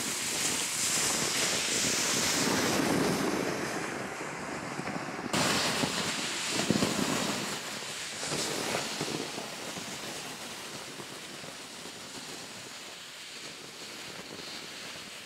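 Plastic sled dragged over packed snow along with footsteps in the snow, a steady scraping hiss that changes abruptly about five seconds in and then fades as the sled moves away.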